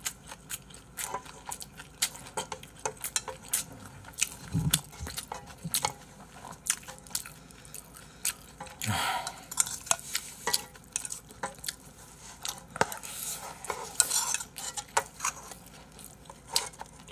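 A spatula scraping and knocking in a metal frying pan as fried rice is scooped into a bowl, mixed with a spoon clinking against a bowl: a steady string of irregular clicks and scrapes.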